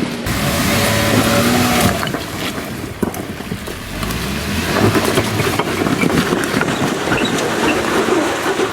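Four-wheel-drive vehicle's engine working hard under load as it climbs a rocky off-road track, surging and easing, with tyres crunching and scrabbling over rock.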